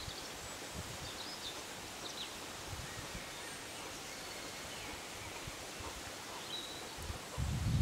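Quiet pond-side outdoor ambience: a steady faint hiss with a few short, distant high bird chirps. About seven seconds in, a louder low rumble on the microphone starts.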